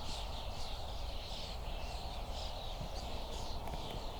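Birds chirping in quick repeated short high notes, over a steady outdoor hiss and a low rumble.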